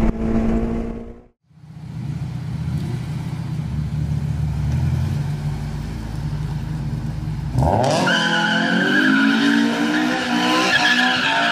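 Honda S2000's four-cylinder engine running at low revs; about two-thirds of the way in the revs jump and the rear tyres break loose into a sustained squeal as the car spins a burnout donut. A second of engine at speed heard from inside the car comes before it.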